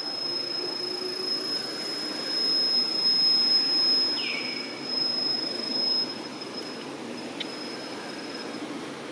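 Outdoor ambience: a steady high-pitched whine over a continuous rushing hiss that swells in the middle. A short falling squeak comes about four seconds in, and the whine stops near the end.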